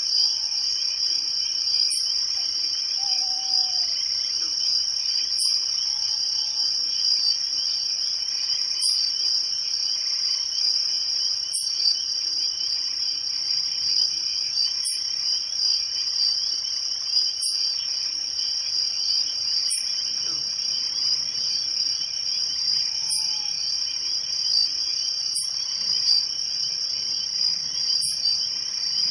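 Crickets chirping in a steady, dense chorus, with a separate short high chirp repeating about every three seconds.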